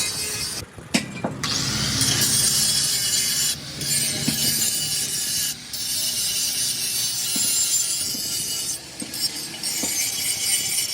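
Angle grinder grinding steel on a truck chassis, a steady harsh rasp that breaks off briefly a few times.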